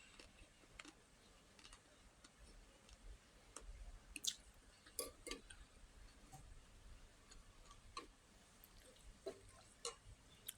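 Quiet eating sounds: scattered soft clicks and smacks of a person chewing food, a few louder ones a little after four and five seconds in.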